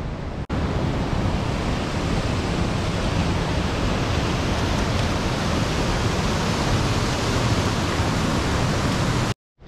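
Steady rush of river water, an even noise with no tones in it. It breaks off for an instant about half a second in and cuts out just before the end.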